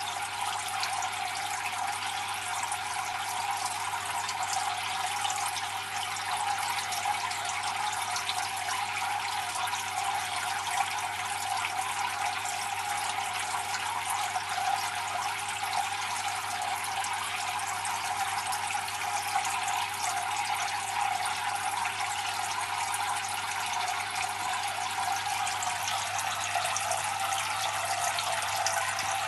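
Several thin streams of water falling from a tank filter's perforated spray bar and splashing onto the water surface, a steady even splashing, with a low steady hum underneath.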